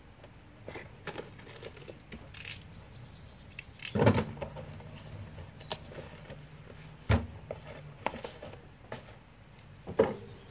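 A small cardboard parcel being cut open and unpacked by hand: tape slit, flaps pulled open, cardboard scraping and rustling. Three louder knocks land about four, seven and ten seconds in.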